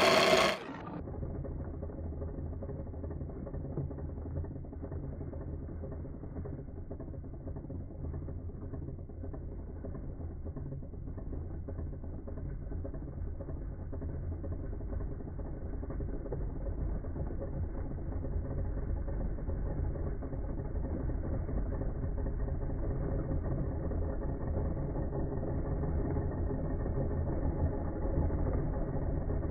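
KitchenAid Magnetic Drive blender churning vanilla pods in liquid. A loud whir cuts off about half a second in, leaving a steady, muffled low motor hum that slowly grows louder.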